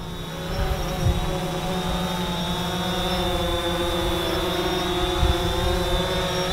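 DJI Phantom quadcopter's propellers buzzing as it hovers and comes down low close by: a steady whirring hum with a high whine over it, getting louder about half a second in.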